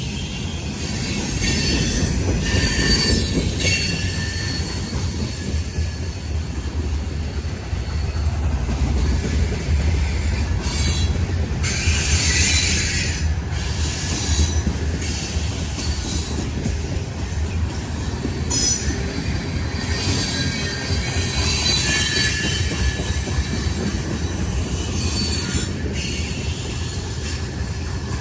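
Freight train rolling past, a steady low rumble of wheels on rail with high-pitched wheel squeal rising and fading every few seconds.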